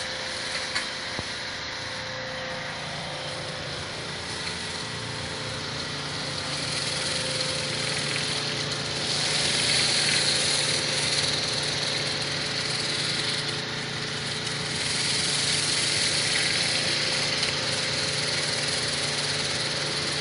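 Hot-water pressure washer running steadily, with the hiss of a rotary surface cleaner blasting hot water onto concrete. The hiss grows louder about nine seconds in, as the steaming cleaner works the sidewalk.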